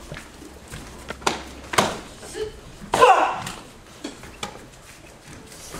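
Sharp slaps and thuds of martial-arts strikes landing on a partner during a Kenpo technique demonstration, several in quick succession, with a loud shout (kiai) about three seconds in.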